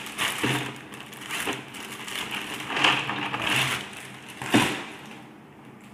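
Clear plastic bag of small wire connectors being handled and opened, crinkling in several irregular bursts, with a louder sharp crackle about four and a half seconds in.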